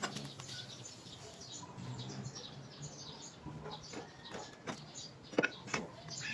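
Small birds chirping, with a few light metal clicks and knocks in the second half as a scooter swing arm is handled and fitted against the rear wheel.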